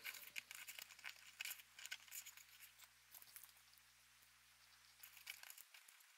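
Faint, scattered clicks and light rustles of small plastic building bricks being handled and fitted together by hand.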